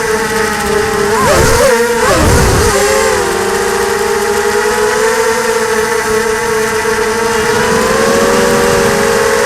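ZMR 250 FPV quadcopter's four brushless motors and propellers whining. The pitch swings rapidly up and down about a second in, with the throttle changes of an acrobatic manoeuvre, then settles into a steady hum.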